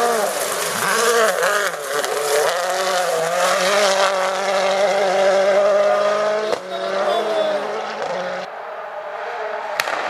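Rally cars driven flat out on a gravel stage, their engine notes dipping and rising with lifts and gear changes, then held high and steady. About two-thirds through the sound cuts to another car, quieter near the end.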